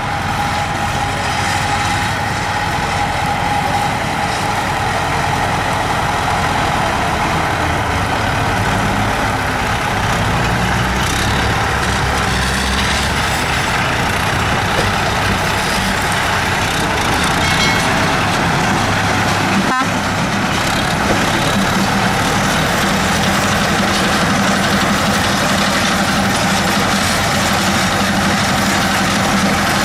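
Tractor engines running steadily, with one sharp click about two-thirds of the way through.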